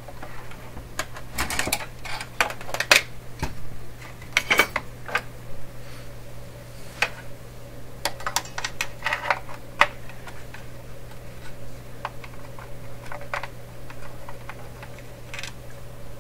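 Irregular clicks, taps and short scrapes of a plastic rod poking about the metal chassis of a 1928 RCA Victor Model 28V radio, beside its tuning capacitors, with several sharp taps standing out. A steady low hum runs underneath.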